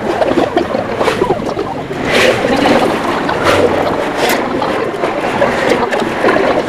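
Busy café background: a steady murmur of indistinct chatter with a rushing noise, and a few short, sharp rustles or clinks, about two, three and a half and four seconds in.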